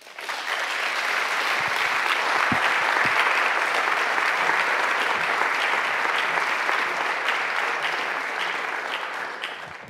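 Audience applauding. The clapping swells within the first second, holds steady, and fades away near the end.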